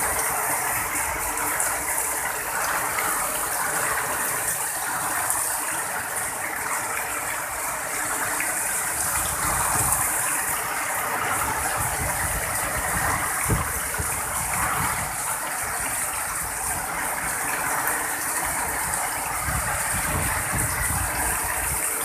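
Heavy rain pouring steadily, with irregular low rumbles of wind buffeting the microphone.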